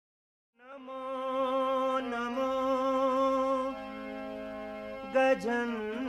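Devotional music opening a sung Sanskrit prayer to Ganesha: after a short silence, long held notes over a steady drone, with a voice among them and a brief sharp strike about five seconds in.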